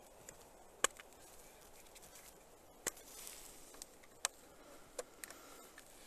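Sharp plastic clicks from a trail camera being handled and unstrapped from a tree trunk: four distinct clicks spread over several seconds, with fainter ticks between them.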